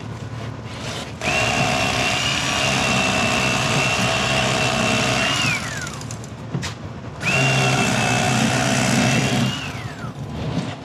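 Bubba Blade electric fillet knife running in two bursts, the first about four seconds and the second shorter, each a steady high whine that drops in pitch as the motor stops. It is cutting into a sheepshead just behind the fin.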